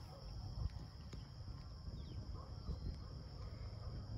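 Quiet outdoor ambience: a low wind rumble on the microphone under a steady high-pitched insect drone, with a few faint soft ticks.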